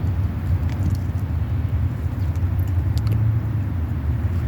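Steady low rumble with a few faint light clicks over it.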